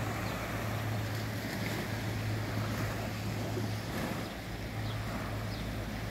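Small waves washing gently onto the beach of a calm sea, a steady wash with a constant low hum beneath it.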